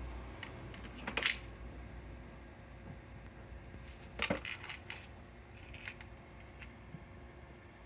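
Light clicks and clinks as a cat rubs against a Makita battery charger and knocks it, in two louder clusters about a second in and about four seconds in, with smaller ticks between.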